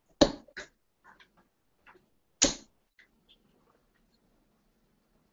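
Sharp knocks of steel-tip darts at a bristle dartboard: two loud clicks close together right at the start, a few faint ticks, then a third loud click about two and a half seconds in.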